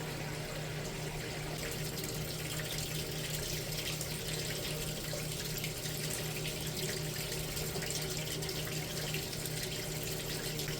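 Water running steadily out of an opened boiler as it drains, so that the leaking tube can be found.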